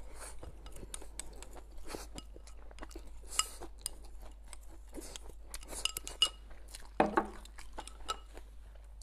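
Wooden chopsticks clicking and scraping against a ceramic rice bowl held at the mouth while rice is shovelled in, with chewing in between; a few of the taps make the bowl ring briefly. About seven seconds in comes the loudest knock, as the bowl is set down.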